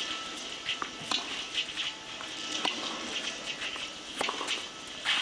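Murmur of a tennis crowd between points, with scattered short clicks and knocks at uneven intervals.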